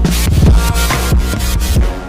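Background electronic music with heavy bass and a steady drum beat.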